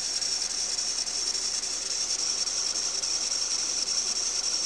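Renault Duster's 2.0 F4R engine running, with a steady high-pitched rustling hiss from the alternator drive belt at its tensioner pulley. The rustle stops when the belt is sprayed with water. A new tensioner bearing did not cure it, and the owner traces it to the belt itself, possibly with grit embedded in it.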